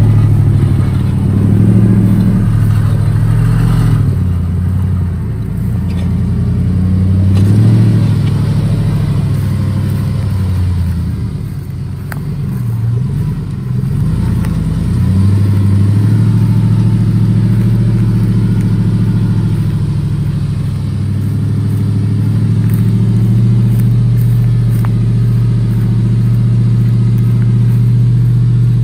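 2005 GMC Sierra 1500 pickup's engine pulling hard under load as the truck tows a loaded gooseneck trailer, driven through its front wheels only. The engine note rises and falls in pitch through the first half, eases and dips about halfway, then holds a steady pitch.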